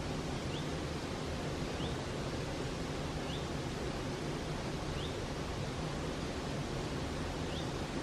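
Mountain stream flowing over rocks: a steady, even rush of water. A faint short high chirp repeats every second or so above it.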